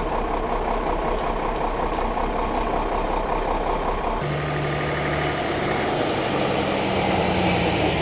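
Heavy truck engine running steadily. About four seconds in, the sound changes abruptly: the deep rumble drops away and a steady hum comes in.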